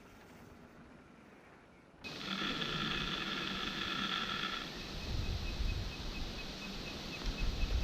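Mountain bike's DT Swiss 350 rear hub freewheeling, its ratchet freehub buzzing; the buzz starts suddenly about two seconds in and falls to a slower, even run of clicks about halfway through. A low rumble runs under it.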